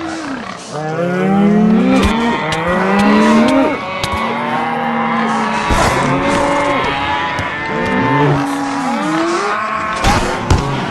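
Layered sound effects: many overlapping low, pitched groans that each rise and then fall in pitch, with sharp clicks scattered through and several near the end.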